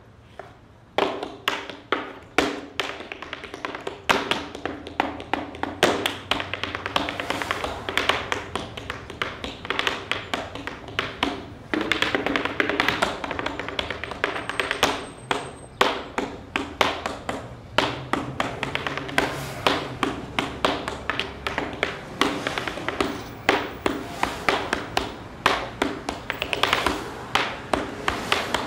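Tap shoes striking a small portable wooden tap board in fast, rhythmic patterns of sharp clicks, starting about a second in and running on without a break.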